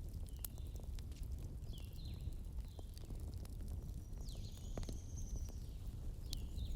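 Wood fire crackling with scattered sharp pops over a steady low rumble, while small birds chirp in the background: short high chirps every second or so, with one longer call near the middle.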